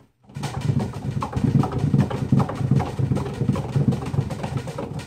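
Large wooden cat exercise wheel rumbling as a cat sprints in it, with uneven thuds of its paws on the wood. It starts suddenly about a third of a second in.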